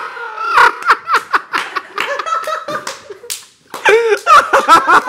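Several people laughing hard in bursts, with sharp smacks mixed in among the laughter.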